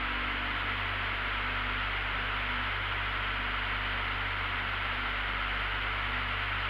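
Steady drone of a light aircraft's engine and propeller heard in the cabin in cruise flight: an even hiss over a low hum. A faint held musical note fades out a few seconds in.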